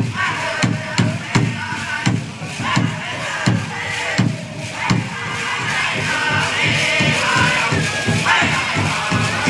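Powwow drum struck in a steady, even beat, about two to three strikes a second, with a group of singers chanting over it, their singing growing louder from about halfway.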